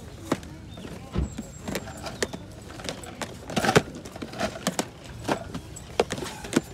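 Handling noise: a run of sharp clicks and small knocks of plastic game cases being picked over and handled, with the loudest cluster a little past halfway, over a steady low background rumble.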